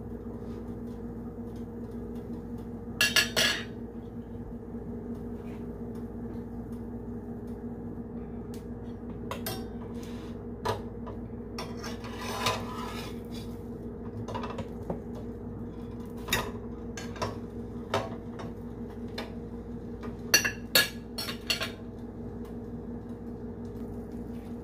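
Spatula knocking and scraping against a nonstick frying pan as a sandwich is pressed and turned, in scattered strokes with a louder cluster about three seconds in and another about twenty seconds in. A steady low hum runs underneath.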